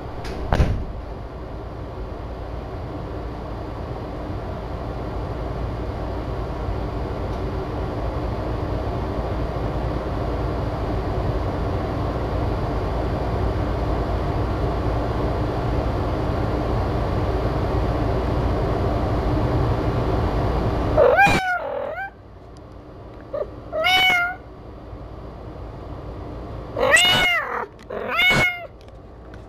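A cat meowing four times in the last third, each a short meow that rises and falls in pitch. Before the meows there is a steady droning background noise, which stops suddenly just before the first meow.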